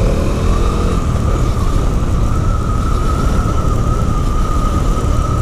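Riding noise from a Bajaj Dominar 400 motorcycle under way: wind rush and engine rumble, with a steady high whine held throughout.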